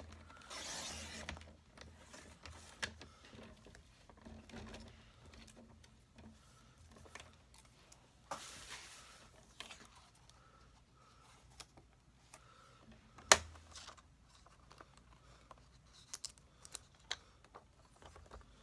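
Sliding-blade paper trimmer cutting through planner pages: two rasping strokes of about a second each, one about a second in and one about eight seconds in. Sharp clicks and snaps between and after, the loudest about 13 seconds in, as the pages and the planner's metal rings are handled.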